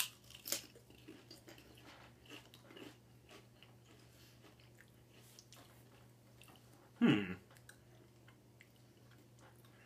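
Crisp potato chips being bitten and chewed: a sharp crunch at the start and another about half a second later, then quieter chewing. About seven seconds in comes a short, loud vocal sound from one of the eaters, falling in pitch.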